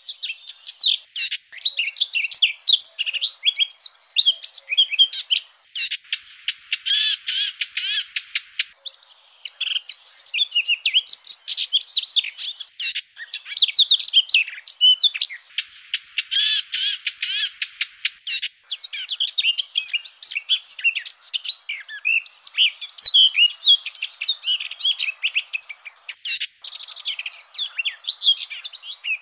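Blackcap song: a fast, continuous, varied warble of high notes, broken twice by longer stretches of rapid repeated trilling.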